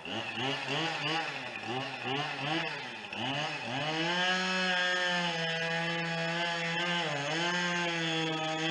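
Two-stroke chainsaw revved up and down in quick pulses, then held at a steady high speed, dipping briefly about seven seconds in.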